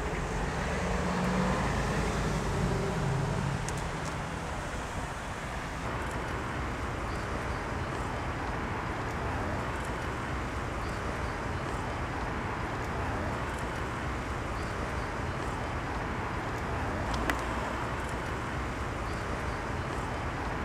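Street ambience: a steady rumble of road traffic, with a faint voice in the first few seconds and a single sharp click about 17 seconds in.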